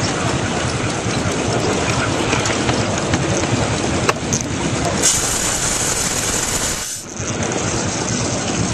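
Miniature live steam locomotive running along its track, a steady rushing noise of wheels on rail and working steam. A sharper steam hiss starts about five seconds in and cuts off abruptly about two seconds later.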